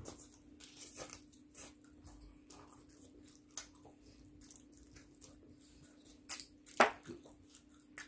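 Chewing and biting fried chicken, with small wet squishing mouth sounds and scattered clicks, and one sharper click about seven seconds in. A faint steady hum runs underneath.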